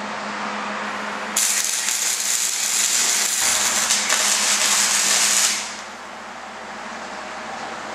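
Electric arc welder crackling and sizzling as steel T-post fence posts are tack-welded, starting suddenly about a second and a half in and stopping after about four seconds, over a low steady hum.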